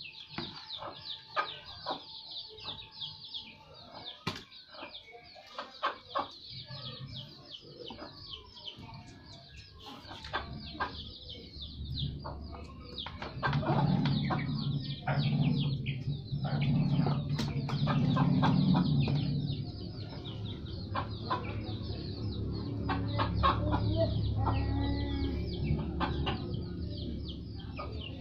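Chickens clucking, with water splashing and knocking in a plastic basin as a toddler plays in it. A louder low rumble joins about twelve seconds in.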